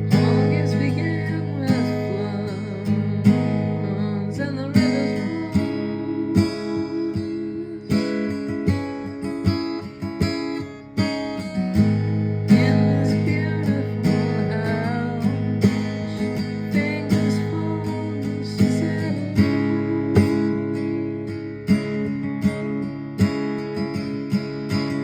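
Acoustic guitar played steadily, strummed and plucked chords with no singing.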